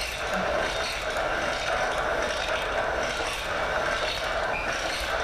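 Leather staking machine running steadily, a mechanical noise as its arm pulls a goatskin between two rollers on top and three blades underneath to soften the leather.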